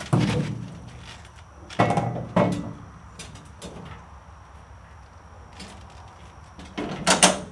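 A tractor canopy's metal mounting frame being worked down onto a compact tractor's roll bar: clunks and sliding scrapes just after the start, twice around two seconds in, and loudest near the end. The parts still have paint on them and fit tight.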